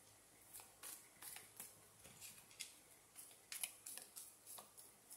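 A deck of tarot cards being shuffled and handled by hand: faint, crisp card flicks and swishes, irregular, about two or three a second.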